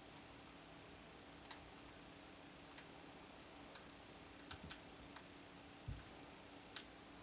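Near silence with a faint steady hum, broken by a few soft, irregularly spaced clicks and one dull thump about six seconds in, from young kittens scampering and wrestling on carpet.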